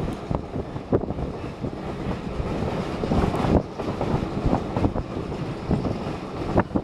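A train in motion, heard from on board: a steady rumble of wheels on rail, with irregular clacks and knocks as the wheels pass over rail joints.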